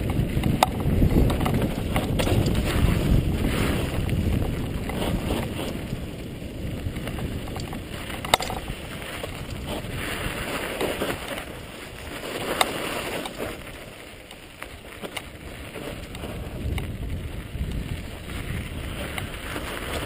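Wind rushing over the camera microphone and mountain bike tyres rolling over a loose dirt-and-gravel trail during a fast downhill ride, loudest in the first few seconds and easing off past the middle. A few sharp knocks stand out, about 8 and 12 seconds in.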